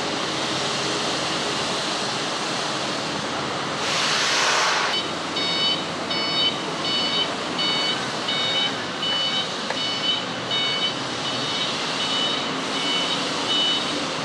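Steady warehouse machinery noise, a short hiss about four seconds in, then an electronic warning beeper from materials-handling equipment repeating about twice a second.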